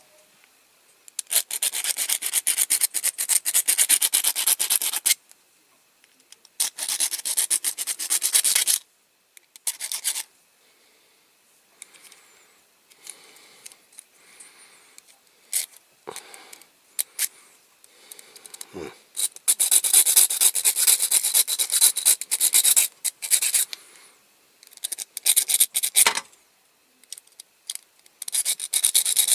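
Small hand file rasping in quick strokes on the mushroomed metal end of a diecast toy's axle, in several bursts of a few seconds with pauses between.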